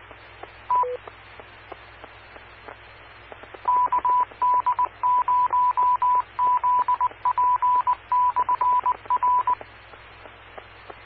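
Amateur radio repeater tones heard over a scanner feed. Just after the transmission drops, a short beep steps down from a higher to a lower pitch (a courtesy tone). About four seconds in, a single-pitch beep is keyed in short and long pulses for about six seconds: the repeater's Morse code identification. A faint hiss and low hum sit underneath.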